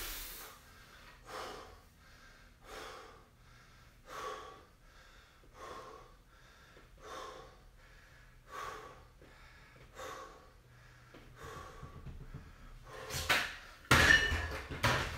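A man breathing hard and evenly, one breath about every one and a half seconds, while holding a wall sit straight after a set of dumbbell presses. Near the end come louder breaths and a couple of knocks as dumbbells are set down on the rubber gym floor.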